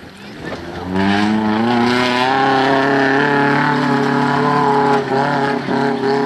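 Suzuki Vitara off-road race car's engine revving up hard about a second in and held at high revs as it drives past close by on a muddy track, with two brief dips in revs near the end.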